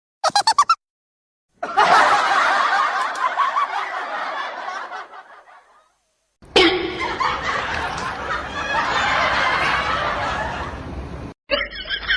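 People laughing, heard in several separate stretches cut off by abrupt silent gaps. A sudden sharp burst opens the middle stretch, about six and a half seconds in.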